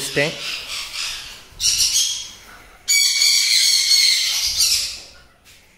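Lovebirds giving shrill, harsh calls. There is a short burst about a second and a half in, then a longer stretch of overlapping calls from about three to five seconds in.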